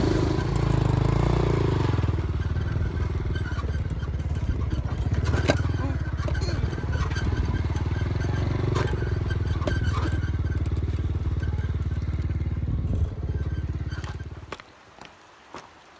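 Motorcycle engine running steadily, its pitch rising and falling a little, then cutting off about a second and a half before the end.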